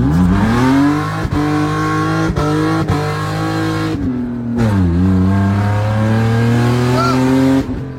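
BMW Z3 2.8i's inline-six through a cut exhaust line, accelerating hard from a standing start: the engine note rises steeply, climbs steadily, drops sharply about halfway through as at a gear change, then climbs again.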